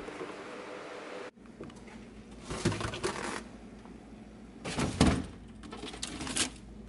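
Food being taken out of a refrigerator: plastic produce packaging handled and rustled in three short bursts, over a low steady hum.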